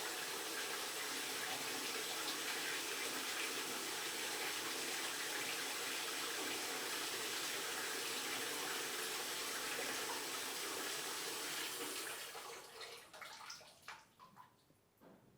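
Water running steadily from a tap into a sink or basin. About twelve seconds in, the flow is shut off and dies away over a couple of seconds, followed by a few last drips.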